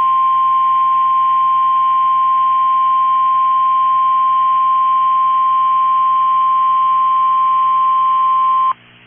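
NOAA Weather Radio warning alarm tone: a single steady 1050 Hz tone held for about nine seconds, then cutting off abruptly near the end. It is heard through a narrow-band radio stream and signals that a warning message follows, here a severe thunderstorm warning.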